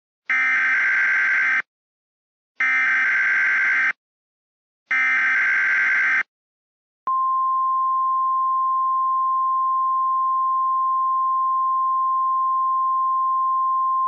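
Emergency Alert System SAME header: three bursts of harsh digital data screech, each about a second and a half long with a second's gap between them. About seven seconds in, a steady single-pitch attention tone of the weather-radio kind begins and holds without change.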